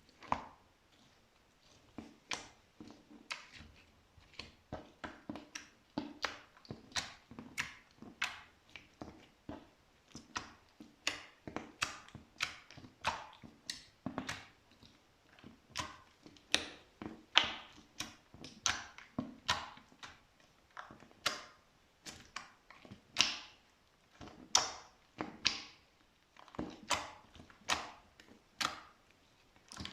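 Slime being squeezed and pressed by hand, making a steady run of sharp, wet clicks and pops, about one or two a second.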